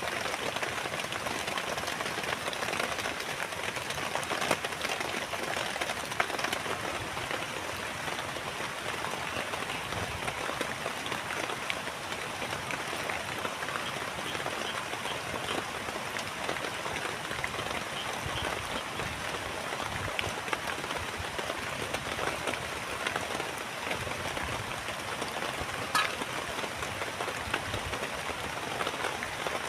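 Steady rain falling, with many small drop impacts throughout and one sharper tick near the end.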